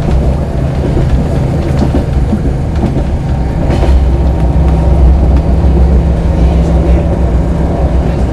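Siemens Desiro diesel multiple unit heard from on board at speed: a steady low drone from the diesel engine and running gear, mixed with the rumble of wheels on the rails.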